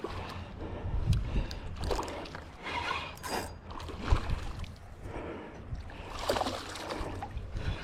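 Creek water sloshing and splashing in short, irregular swells, over a low rumble of wind on the microphone.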